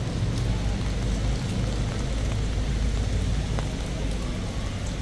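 Steady rain falling on wet stone paving, with a low rumble underneath.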